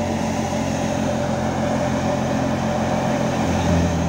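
Tractor-driven wheat thresher running steadily under load as sheaves are fed into its drum, its blower and engine making a continuous mechanical drone. The engine note shifts slightly and grows a little stronger about three and a half seconds in.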